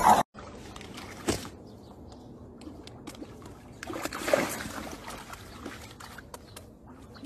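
A loud noisy burst from a cat scuffle cuts off abruptly at the start. Then water laps gently against a stone shore with a low, even outdoor noise and a few small clicks, and a brief louder sound about four seconds in.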